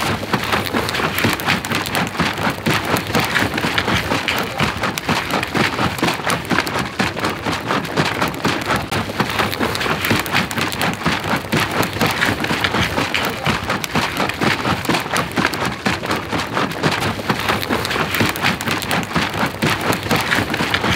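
Steady, dense crackling patter like heavy rain.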